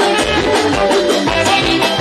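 Live band music: guitars playing over a steady drum beat.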